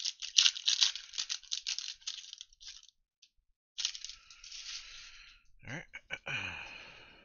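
Foil wrapper of a 2021 Illusions football card pack crinkling and tearing open for about three seconds. After a short pause come rustling and sliding sounds with a few sharp clicks, which fit the cards being pulled out and handled.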